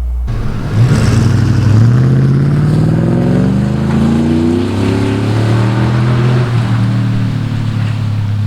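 5.3L Chevy V8 exhaust through Cherry Bomb Salute mufflers under hard acceleration: the pitch climbs through one gear, drops at an upshift about two seconds in, climbs again through the next gear, then levels off to a steady drone.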